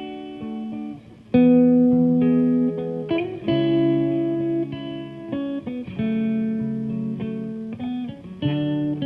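Background music: a gentle guitar piece with plucked and strummed notes.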